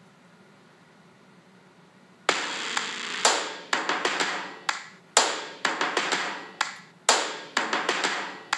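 After about two seconds of near quiet, a quick, irregular series of sharp taps, about two or three a second, each trailing off in a short hiss.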